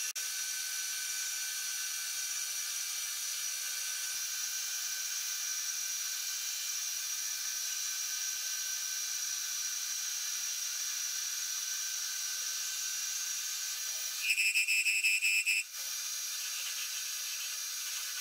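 Metal lathe running, turning a metal shaft between chuck and centre: a steady high whine and hiss of the spindle and cut. About 14 seconds in, a loud high squeal lasts about a second and a half, then the steady whine returns.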